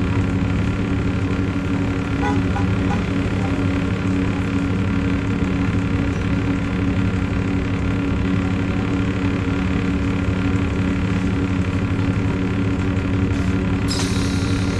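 1993 Gillig Phantom transit bus heard from inside, running at a steady pace with its Cummins ISM diesel and Allison B400R transmission: a loud, unchanging drone carrying the grinding noise that the uploader suspects comes from the transmission. A short hiss comes in near the end.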